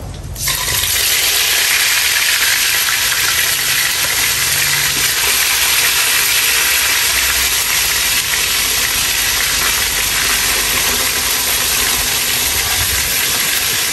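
Chili-marinated tilapia going into a pan of hot oil: a loud frying sizzle starts about half a second in and holds steady.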